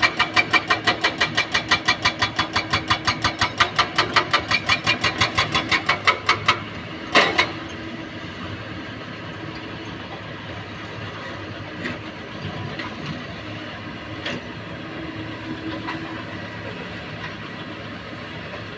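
Excavator working: a fast, even clatter of about four to five clicks a second that stops about six seconds in, then one loud clank, then the diesel engine running steadily with a few faint knocks.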